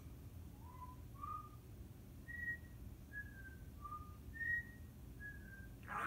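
Timneh African grey parrot whistling a string of about eight short, clear notes that hop up and down in pitch like a little tune.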